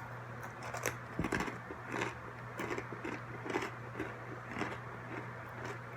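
A person chewing crunchy pretzels with soft, irregular crunches about twice a second, over a steady low hum.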